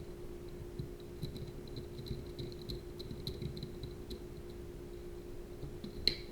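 Light clicking and handling of small CubeSat kit parts as they are fitted together, with a sharper click near the end. A steady low hum runs underneath.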